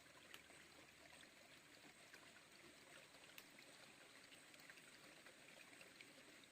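Near silence: the faint, steady rush of a small river flowing, with a few soft clicks.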